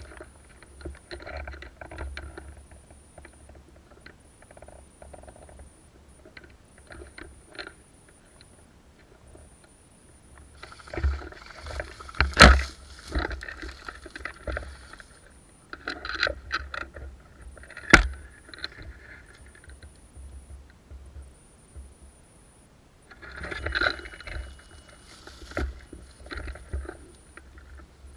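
Irregular rustling and scraping of someone moving through forest undergrowth, with busier stretches and quieter pauses. Two sharp single cracks stand out, about twelve and eighteen seconds in.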